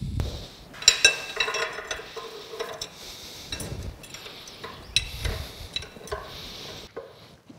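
Steel wrench and nut clinking and scraping against the stoker engine's connecting-rod fittings: a string of sharp metallic clinks, each with a short ring.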